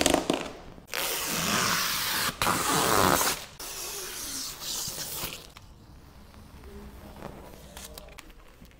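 Protective film and adhesive tape being peeled off a new car's paint and door sill: loud ripping and crackling for the first few seconds, then softer rustling that dies away about five seconds in.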